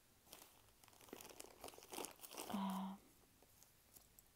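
Rustling and crinkling with small sharp clicks as pieces of costume jewelry are handled and picked out of a pile, ending in a brief steady low hum about two and a half seconds in.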